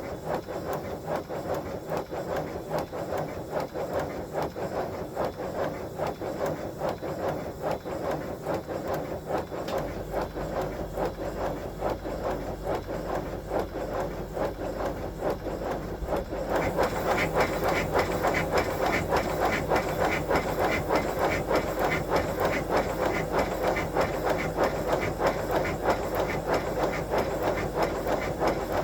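5-inch gauge BR Class 9F model locomotive running on compressed air on a rolling road, its cylinders giving rapid, even, hissing exhaust beats. A low hum joins about ten seconds in, and the beats get louder and sharper a little past halfway.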